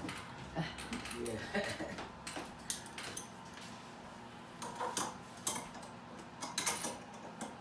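Scattered light metallic clicks and clinks as the nested measuring pistons under the hopper of an 80-year-old seed-packing machine are adjusted, slid and locked by hand; the machine itself is not running.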